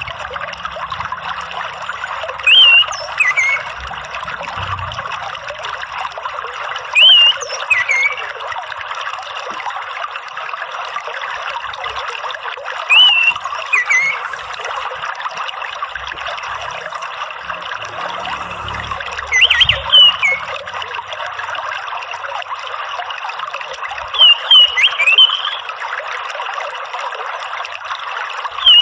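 Steady sound of running, trickling water, with an orange-headed thrush (anis merah) giving short whistled call phrases about every five or six seconds, the last a quick cluster of notes.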